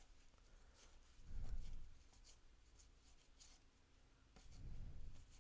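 Quiet handling of cardboard baseball cards, soft scratchy rustles as the cards are slid and flipped through one by one, with two low, muffled bumps, about a second in and near the end.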